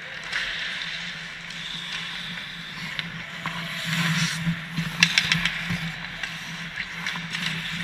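Ice hockey skates scraping and carving the ice close by as a goalie shuffles across the crease, over a steady low hum. The scraping grows louder about four seconds in, and a few sharp clacks come a second later.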